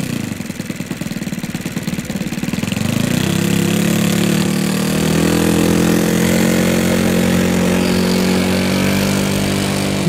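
OS 95 four-stroke model engine in a radio-controlled DH-60 Gipsy Moth, ticking over at idle with its separate firing beats audible, then opened up about three seconds in to a louder, steady higher-pitched run as the model starts its take-off roll.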